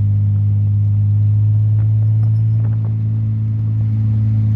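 1938 SS Jaguar 3½ Litre's straight-six engine running at a steady speed as the car is driven, a steady low drone with no change in pitch.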